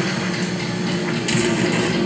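Video game audio playing through desktop speakers: a steady low droning ambience, with a brighter hiss about a second and a half in.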